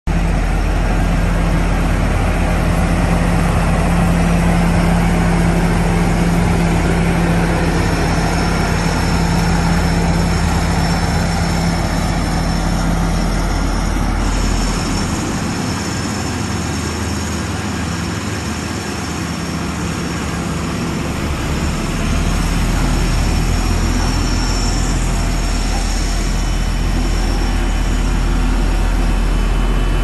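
Car driving, heard from inside the cabin: a steady low engine hum under tyre and road noise. About halfway through the deepest part of the hum falls away for several seconds, then returns.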